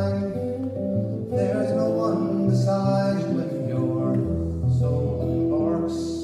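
A man singing a slow song to his own archtop guitar accompaniment, with held notes and strummed chords.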